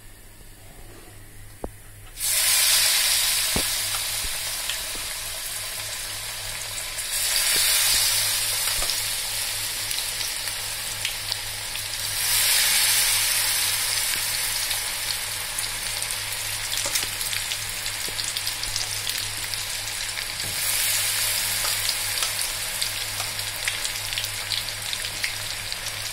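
Battered potato and onion pakoras dropped into hot oil: after a few light clicks of a spoon in a steel bowl, the oil suddenly bursts into loud sizzling about two seconds in. The sizzle flares up again three more times as further battered pieces go into the pan, and stays steady and bubbling in between.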